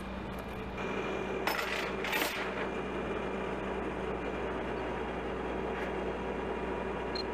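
A vehicle engine idling steadily, with two short rattles about one and a half and two seconds in.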